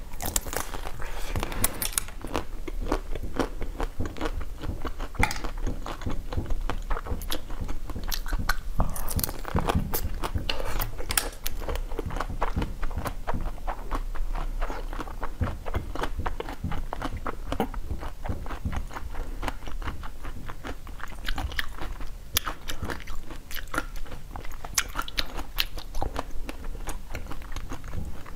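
Close-miked biting and crunching through the hard blue chocolate shell of a frozen bar on a stick, with chewing between bites. Many sharp, irregular cracking bites follow one another.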